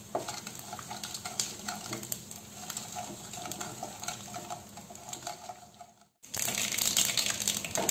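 Mustard seeds, cumin and ajwain sizzling and crackling in hot oil in a kadhai, with scattered small pops as they are stirred with a wooden spatula. This is the tempering at the stage where the whole spices have spluttered. About six seconds in the sound breaks off briefly, then the sizzle comes back louder.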